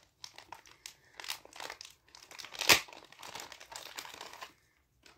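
A thin clear plastic packaging bag crinkling and rustling in the hands as it is handled and opened, with one louder crackle about halfway; it stops shortly before the end.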